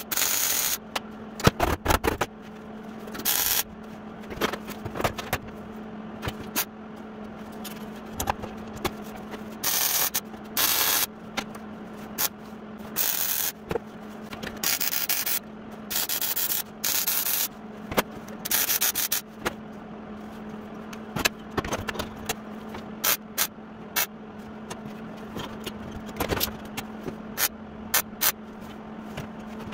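Repeated short bursts of power-tool work on sheet steel, each about half a second to a second long, with sharp clicks between them and a steady low hum underneath.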